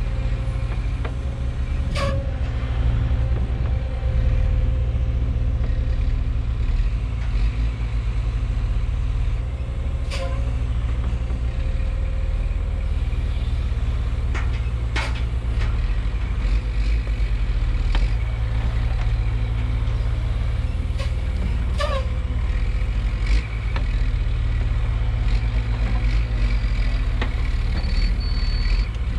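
Caterpillar mini excavator's diesel engine running steadily while it digs a trench in rocky soil, with a few sharp clanks of the bucket striking rock.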